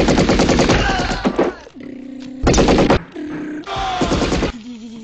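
Automatic gunfire from an action film's soundtrack: rapid shots in three bursts, the first about a second and a half long, with short breaks between them.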